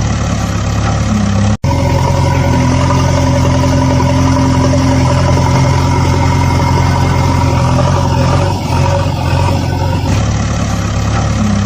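Engine running steadily at a low, even pitch, like a heavy machine idling, with a split-second break about one and a half seconds in.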